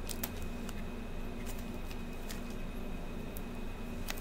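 Steady background hum with a few faint, scattered clicks and taps as a toy egg is handled.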